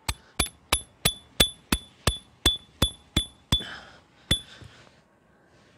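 A hammer driving a 30 cm tent peg into the ground: about eleven quick ringing strikes, about three a second, then one last strike after a short pause. The ground is soft from the rain, so the peg goes in easily.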